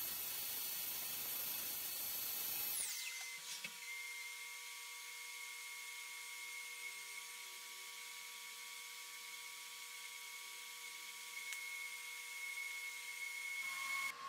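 CNC machining center spindle whining at high speed as a two-flute ball end mill cuts plastic, with a hiss of cutting noise. About three seconds in, the high whine falls away quickly and the machine goes on with a quieter, steady hum.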